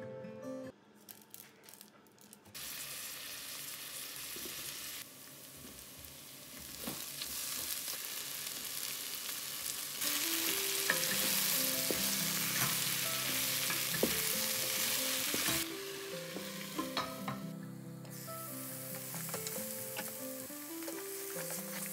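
Onions, tomatoes and prawns sizzling in hot oil in a rice cooker's inner pot while a wooden spoon stirs them, with scattered spoon clicks. The frying hiss comes in a few seconds in and is loudest around the middle, once the prawns are in. Background music plays in the first second and through the second half.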